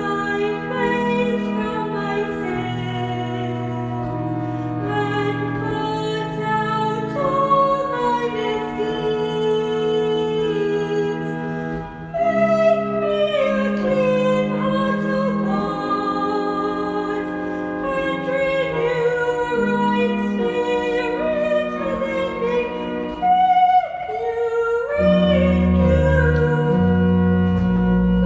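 Church music: held organ-like chords under a solo singing voice with vibrato, sung in phrases with short breaks between them.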